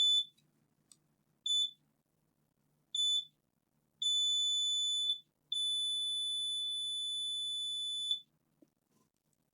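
Multimeter continuity buzzer beeping as the probes touch the ACP and ACN pins. It gives three short beeps about a second and a half apart, then a beep of over a second and one held for nearly three seconds. This shows near-zero resistance across the current-sense input.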